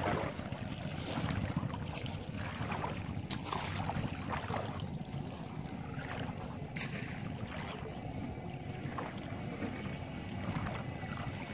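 Shallow water sloshing and splashing as a person wades and handles woven bamboo fish traps, over a steady rushing background, with a couple of brief sharper noises about a third and two-thirds of the way through.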